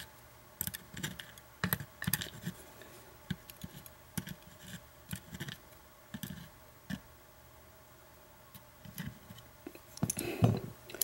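Small metal pins and springs from a gutted padlock being handled and set down on a work surface: light, irregular clicks and taps, with a short pause and then a louder cluster of clicks near the end.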